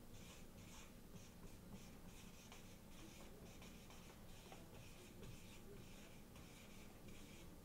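Marker pen writing on a paper flip-chart pad: a quick run of short, faint, scratchy strokes as letters are drawn.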